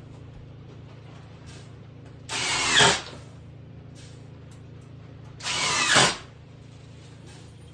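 Power drill run in two short bursts, each about two-thirds of a second long and a few seconds apart, its motor pitch falling as it spins down at the end of each. A steady low hum runs underneath.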